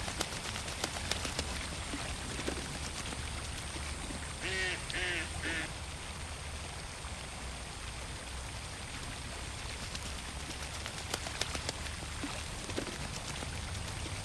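A duck quacks three times in quick succession about four and a half seconds in, over small water splashes and drips from ducks on the pond. A low steady hum runs underneath.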